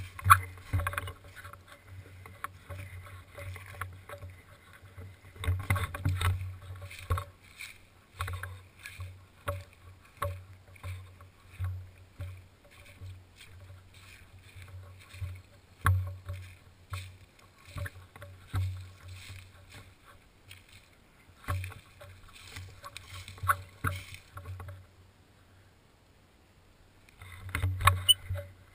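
Irregular low thumps and knocks with rustling, from the camera being moved and handled. The noise goes quiet for a couple of seconds near the end, then a last cluster of knocks follows.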